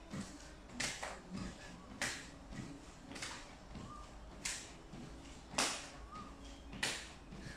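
A mini fitness trampoline being bounced on in a steady rhythm: soft thumps of the mat a little under two a second, with a sharp snap-like click on about every other bounce.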